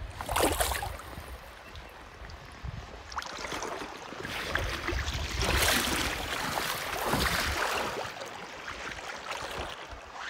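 Shallow river water splashing and lapping around hands releasing a fish, with one sharp splash about half a second in. A broad rushing noise swells between about four and eight seconds in.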